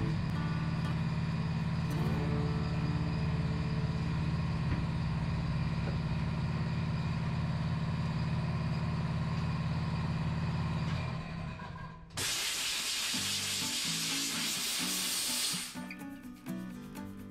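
Background music, then about twelve seconds in a loud hiss of compressed air from the tyre changer's air line, lasting about three and a half seconds and cutting off sharply, as the tyre is inflated.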